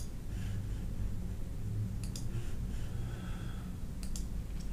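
Computer mouse clicks, a few single ones about two seconds apart, over a steady low hum.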